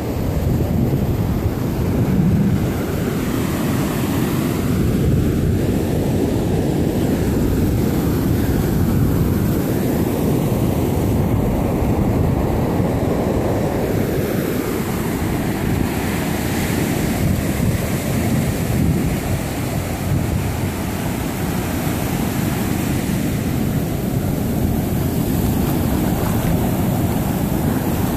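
Ocean surf breaking and washing up the beach, mixed with a steady rumble of wind on the microphone.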